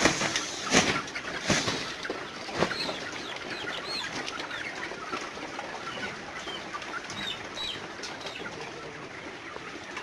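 A large flock of parent-breeder chickens at the feeders: wings flapping in several short bursts during the first three seconds over the flock's steady din, with short high chirping calls scattered through.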